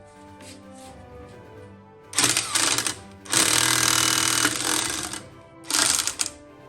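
Pneumatic impact wrench hammering in three bursts, the middle one about two seconds long, driving the bolts of a home-made hub puller to pull a brake drum off. Background music plays underneath.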